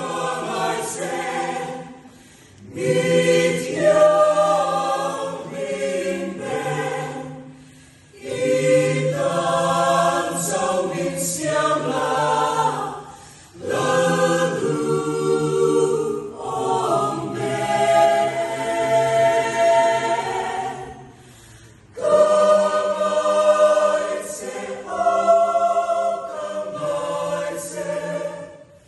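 Mixed choir of women's and men's voices singing a cappella, with no instruments, in phrases a few seconds long separated by brief pauses.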